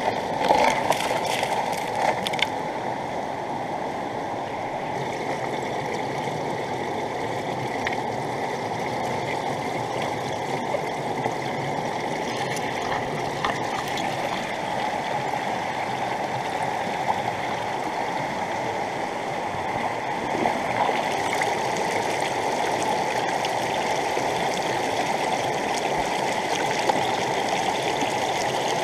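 Steady rush of water: pumped water pouring from a hose through the sluice box of a homemade 12-volt electric mini highbanker, against a flowing river. A few light knocks in the first couple of seconds.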